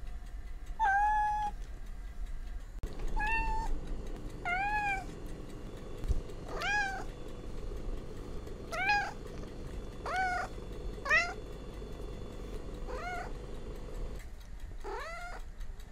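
Young kitten meowing again and again: about nine short, high-pitched mews, each rising and falling in pitch, a second or two apart.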